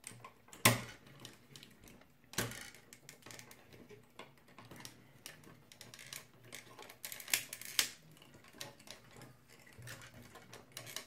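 Hard plastic clicks, taps and rattles from a large plastic transforming robot dragon figure as its joints and parts are moved and repositioned by hand: irregular small clicks with a sharp snap about a second in, another a couple of seconds later, and a few louder clicks past the middle.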